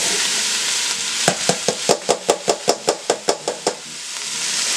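Chopped vegetables sizzling in a stainless steel pot as onions and scallions are tipped in. In the middle comes a quick, even run of about a dozen sharp knocks, about five a second.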